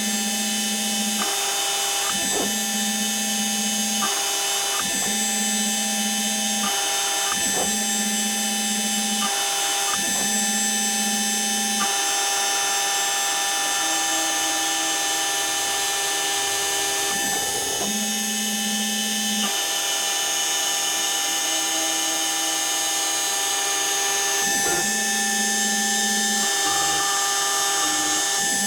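Home-made CNC engraver at work: the spindle motor runs with a steady high whine while the stepper motors drive the axes, humming in tones that change and stop and start every second or two.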